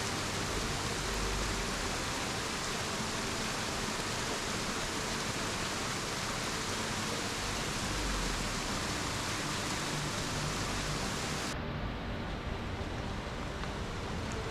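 Steady roar of a rain-swollen waterfall, a dense rushing hiss of falling water. About twelve seconds in the high hiss drops away suddenly, leaving a duller rushing.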